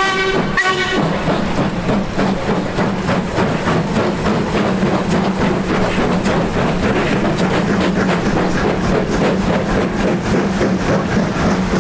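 Two steam locomotives double-heading a passenger train past at close range: an LMS Ivatt Class 2MT 2-6-2 tank and a BR Standard Class 2MT 2-6-0. Their exhaust beats and the rattle of wheels and coaches are heard. A steam whistle dies away in the first half second.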